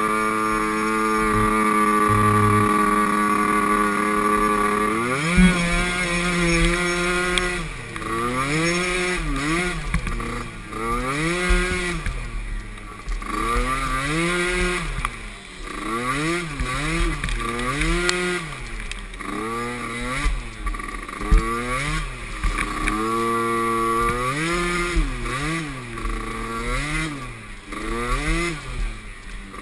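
Small youth ATV engine, held at a steady pitch for about five seconds, then revving up and down over and over, a rise and fall every second or two, as the quad is ridden.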